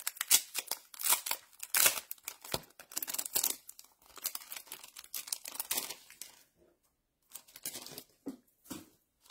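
Thin clear plastic die packaging rustling and crinkling as it is handled, in a run of short scrapes and crackles that die away about two-thirds of the way through, with a few more near the end.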